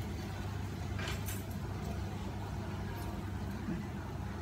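A steady low hum from the cooking stove, with a few light scrapes of a metal spatula against a steel wok about a second in and again near three seconds.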